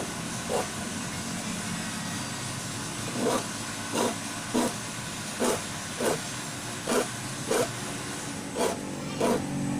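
Hand file rasping across the teeth of a hand saw, sharpening it in short, even strokes about every 0.6 seconds, with a pause of about two and a half seconds after the first two strokes.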